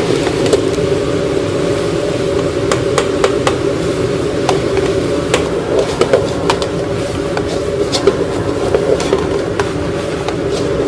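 Commercial kitchen clatter: a steady ventilation-fan drone with many scattered clinks and knocks of utensils and dishes.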